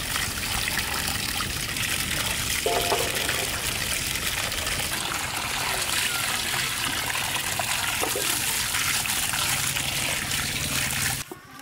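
A stream of water pouring steadily onto chunks of cut needlefish in a bamboo basket, splashing as hands rinse and turn the pieces. The water sound cuts off suddenly near the end.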